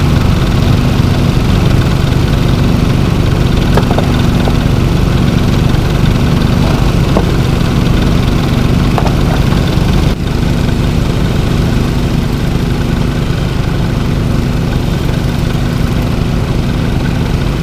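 Small gasoline engine of a gold dredge running steadily at a constant speed, loud and close, driving the dredge's water pump. There is a brief dip about ten seconds in.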